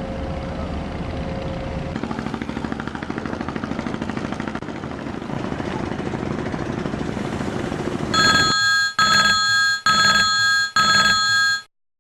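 Steady machinery noise with a fast, even rhythm, then, about eight seconds in, a loud electronic telephone-style ringing tone that sounds four times in quick pulses before the sound cuts off.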